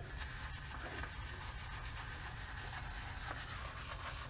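Synthetic shaving brush swirled on the surface of shaving soap in a plastic tub, a faint rubbing and swishing, over a steady low room hum.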